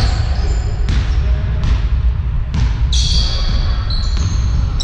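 Basketball being dribbled on a sports-hall floor, a few sharp bounces about a second apart, then sneaker squeaks from about three seconds in, over a steady low rumble in the large hall.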